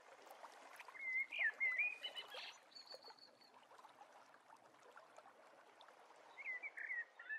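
Birds calling over the steady rush of running water: a short warbling phrase about a second in, a brief high whistle soon after, and another warbling phrase near the end.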